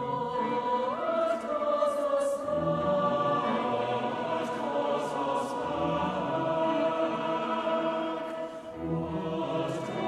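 Choir singing slow, held chords, the upper voices stepping up in pitch about a second in, with soft sung consonants between the notes.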